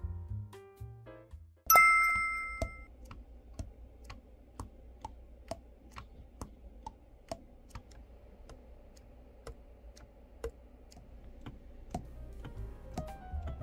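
Keys of a Yanagisawa S-901 soprano saxophone pressed shut one after another during a leak test, their pads closing with short clicks about twice a second; the pads seat cleanly and seal. A chime rings about two seconds in, after piano music fades out.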